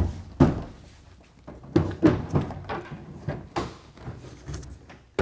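Clunks and knocks of a RetraxPRO XR aluminum retractable tonneau cover and its rails being lowered and set into a pickup bed. The hits come one after another over several seconds, the sharpest at the start and about half a second in.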